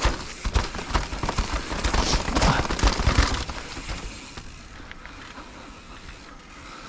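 Mountain bike riding over a rough dirt trail strewn with dry leaves and stones: tyres crackling over the leaves and gravel, with knocks and rattles from the bike over bumps, easing off for the last few seconds.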